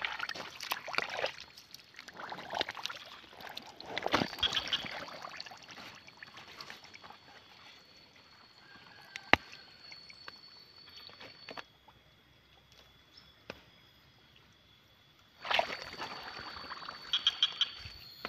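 Shallow pond water sloshing and splashing in irregular bursts, with a lull of a few seconds after the middle before the splashing starts again. A thin, steady high tone runs behind it much of the time.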